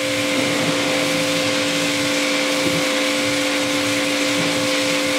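Electric pressure washer spraying, with water jetting from the spray gun onto a car hood: a loud, steady hiss of spray over the steady hum of the pump motor.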